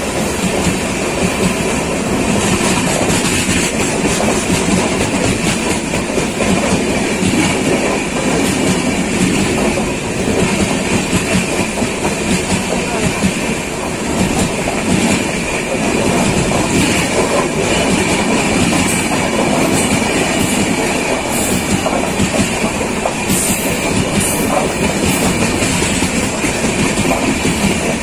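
A train running along the rails, heard from on board: a loud, steady noise of wheels and carriage.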